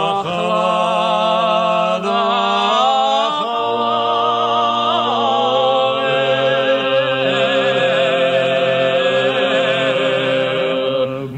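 Several voices singing in harmony: long held notes with vibrato over a low sustained drone, the bass line shifting lower about three and a half seconds in.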